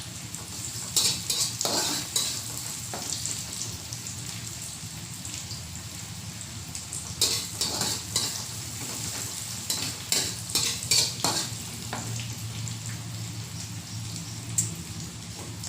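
Shallots and chillies sizzling in hot oil while being stir-fried. A spatula scrapes and clatters against the pan in short bursts: about a second in, around seven seconds and again around ten to eleven seconds.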